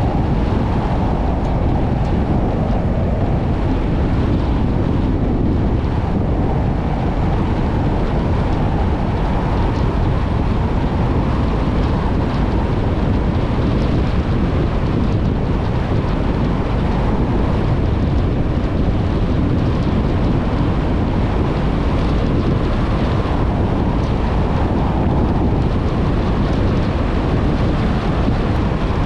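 A vehicle driving steadily along an unsealed dirt and gravel road: a constant low rumble of tyres on the loose surface and the running engine, with wind noise over it.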